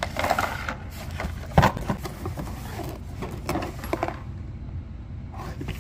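Cardboard box and its plastic-bagged contents being handled and closed up: scattered rustling, light taps and knocks, with one louder thump about a second and a half in.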